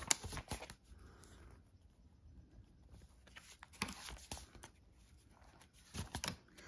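Paper pages of a handmade junk journal being turned and handled: soft rustles and light taps in a few short clusters, just after the start, around four seconds in, and again about six seconds in.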